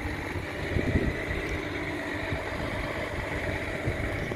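Machinery running steadily: a low rumble with a faint, even high whine over it.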